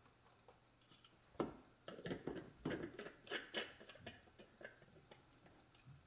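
Plastic blade-assembly lid of a Danmi mini tumbler blender being fitted and screwed onto its glass mason-jar cup: a sharp click about a second and a half in, then a run of small clicks, knocks and scrapes of plastic on glass for about two seconds, tapering off.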